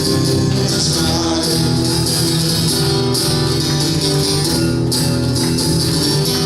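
Live band music with a tambourine shaking steadily over sustained instrumental chords.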